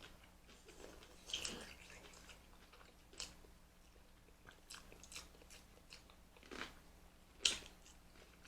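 Close-up chewing and biting of food: scattered short mouth sounds about once a second, the loudest one near the end.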